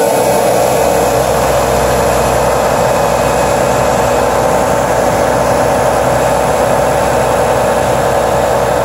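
Massey Ferguson 7716 tractor engine running steadily.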